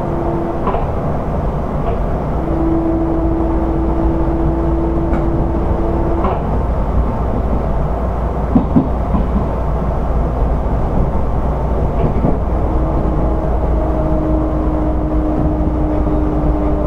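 Odakyu 1000 series electric train running, heard aboard motor car DeHa 1311: a steady rumble of wheels on rail under the hum of its inverter-driven traction motors. The motor hum comes and goes, and when it returns it sinks slowly in pitch. A few brief knocks pass under the wheels, the loudest about halfway.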